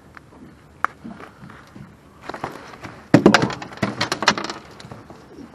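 A flathead thrashing on a boat deck, its body slapping the deck in a quick flurry of slaps around the middle, after one sharp tap about a second in.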